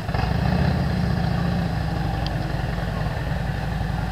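Motorcycle engine running at low revs, a steady low rumble that picks up slightly just after the start.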